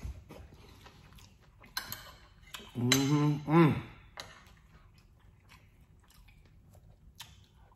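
Close-up mouth sounds of someone eating shrimp and grits: chewing and small wet clicks, with a spoon now and then clinking and scraping on the plate. Around three seconds in comes a short hummed "mmm" of appreciation, its pitch rising and then falling.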